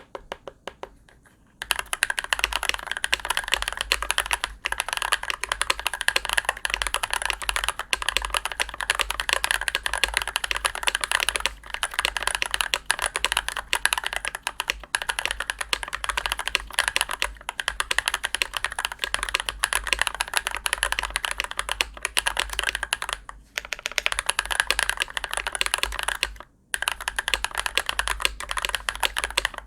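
Steady fast typing on a Glorious GMMK Pro mechanical keyboard with lubed Glorious Panda tactile switches on an aluminium plate and PBT keycaps: a dense run of keystroke clacks. A few scattered keystrokes come first, and the typing breaks off twice, briefly, near the end.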